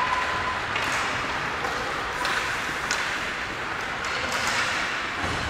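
Ice hockey play: skate blades scraping on the ice, with several sharp clacks of sticks and puck.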